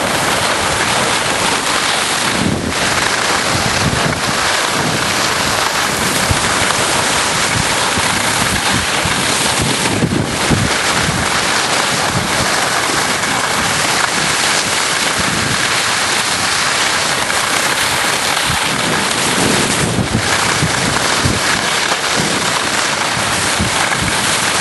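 Wind buffeting the microphone: a steady, loud rushing noise with a fluttering low rumble underneath.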